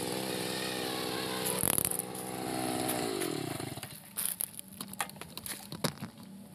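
Backpack brush cutter's small petrol engine running steadily, with a brief louder burst just before two seconds in. About three seconds in its pitch falls as it winds down and stops, leaving a few scattered clicks and rustles.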